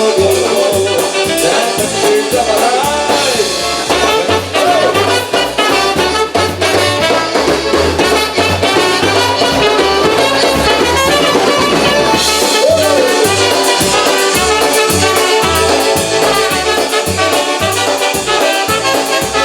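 Live polka band playing an instrumental break between verses, horns over a steady bass beat.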